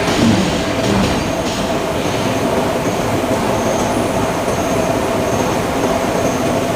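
Steady industrial machinery noise in a forge shop, a continuous heavy rumble and hiss with a held steady tone and no distinct hammer blows.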